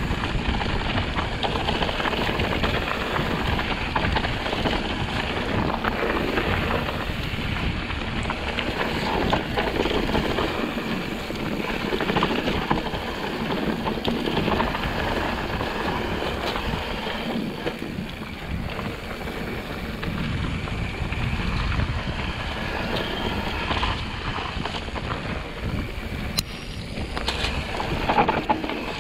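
Mountain bike riding down a dirt trail: wind buffeting the bike-mounted camera's microphone over a steady rush of tyre noise, with frequent small rattles and knocks from the bike on rough ground.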